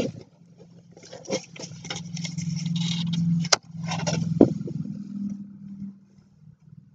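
Rustling and rubbing of a paperback phrasebook being handled and moved close to the microphone, with a low steady hum underneath. Two sharp clicks come about halfway through. It fades out near the end.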